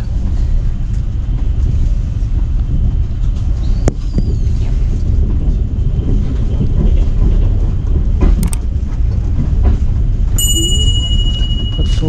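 Steady low rumble of a moving passenger train, heard from inside the carriage, with an odd faint click. Near the end a steady high electronic tone sounds for about a second and a half.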